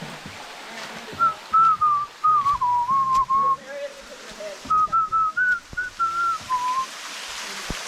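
A person whistling a tune in two short phrases, the second starting about halfway through. Behind it runs a steady wash of water.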